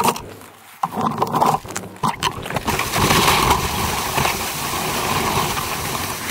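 Engine of a small off-road vehicle running steadily as it drives across a frozen lake, starting about a second in.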